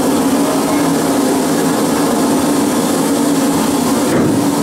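Water rushing through a boat-ride flume and churning alongside it, over a steady machine hum.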